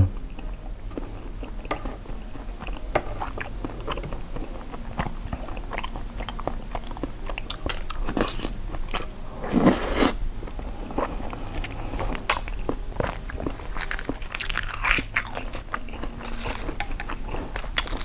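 Close-miked chewing of soy-sauce-pickled seafood: irregular mouth clicks and smacks, with louder smacks about ten seconds in and again around fourteen to fifteen seconds.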